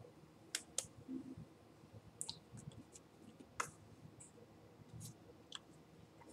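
Faint, irregular clicks and small taps, about half a dozen, made by a person's hands and fingers as they sign in American Sign Language.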